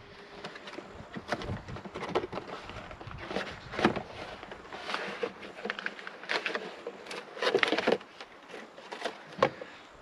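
Cardboard box being opened and a fuel filter pulled from its packaging: a run of handling rustles, scrapes and clicks of cardboard and plastic, with a denser crinkling stretch about three quarters of the way in and a sharp click near the end.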